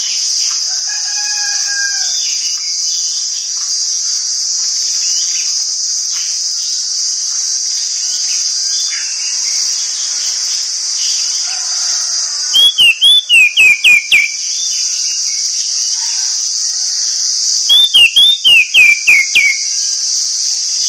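Orange-headed thrush giving two loud runs of quick, falling whistled notes, one about halfway through and one near the end. A steady high insect buzz and faint scattered bird chirps run underneath.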